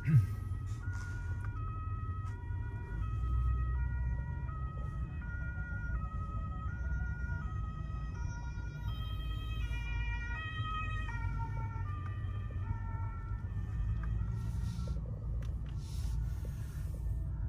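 An emergency vehicle's two-tone siren alternating steadily between two notes, heard from inside a car cabin over steady road rumble; the siren's pitch drops noticeably about eleven seconds in.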